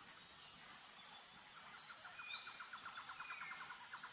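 Faint outdoor nature ambience: a few short bird chirps and whistles over a steady hiss, and from about halfway a rapid trill of about nine pulses a second.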